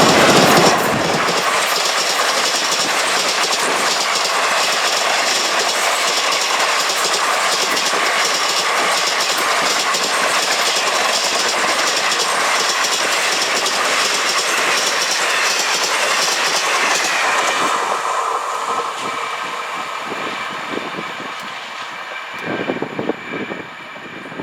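Passenger express train passing at speed: a loud, steady rush of coach wheels with rapid clickety-clack over the rail joints. It is loudest in the first second, then fades over the last several seconds as the tail of the train goes by, with a few last wheel knocks near the end.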